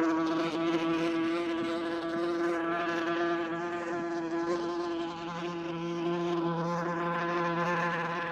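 A wasp buzzing in flight: one steady droning buzz with a slight wobble in pitch, dipping briefly in loudness about five seconds in.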